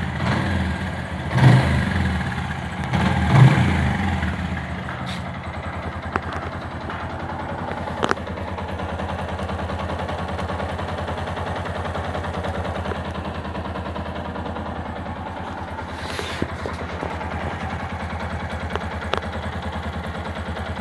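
Yamaha Jupiter MX's single-cylinder four-stroke engine idling smoothly on freshly changed Castrol Power1 Ultimate 10W-40 oil. It is louder over the first few seconds, with two brief surges, then settles to a steady idle with a few faint clicks.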